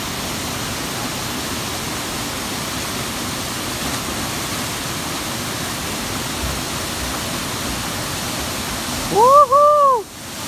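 Steady rushing of a waterfall. Near the end the water noise drops out briefly and two quick pitched tones sound back to back, each rising then falling.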